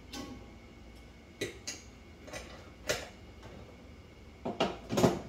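Metal clinks and clanks as a Thermobaker pan is set down into a Chambers stove's Thermowell and the well's metal lid is put on; about eight separate knocks, the loudest near the end.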